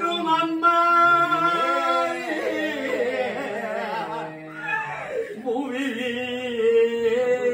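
A voice singing a Tamil mourning lament (oppari): long held notes that waver and slide, with a short dip about four to five seconds in before it carries on.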